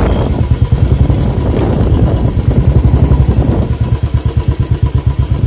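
Motorcycle engine running steadily as the bike is ridden along a dirt path, its low exhaust note beating evenly and quickly.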